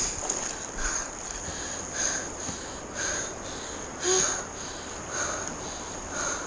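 Silty river water rushing around a whitewater kayak, with paddle strokes splashing about once a second and a steady high-pitched whine throughout.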